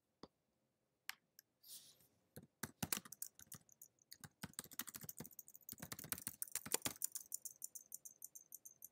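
Typing on a computer keyboard: a rapid run of key clicks, preceded by a few separate clicks. Near the end the typing stops and gives way to a fast, even series of light, high ticks.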